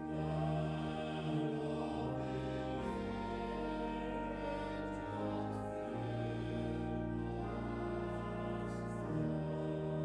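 Church organ playing slow, held chords over long sustained bass notes, the harmony changing every second or two.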